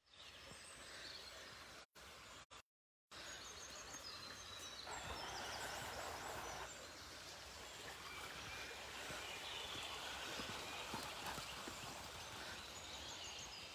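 Outdoor nature ambience: a steady background rush with small birds chirping now and then. The sound cuts out briefly a few times about two to three seconds in.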